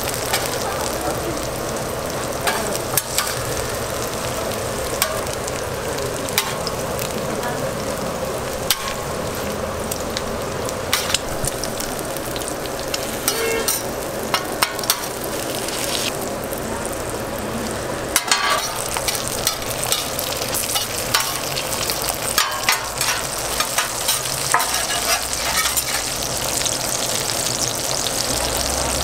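Fried eggs and burger patties sizzling in oil on a flat-top griddle, a steady hiss. It is dotted with frequent short clicks and scrapes of metal spatulas against the steel.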